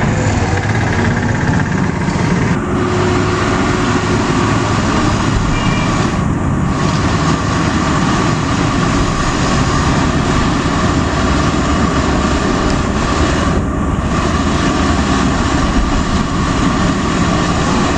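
Samosas deep-frying in a large iron kadai of hot oil: a steady, dense sizzle over a constant low rumble.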